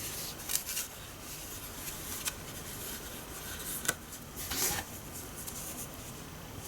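Handling noise: a few light clicks and taps, then a short rubbing scrape about four and a half seconds in, over a steady background hiss.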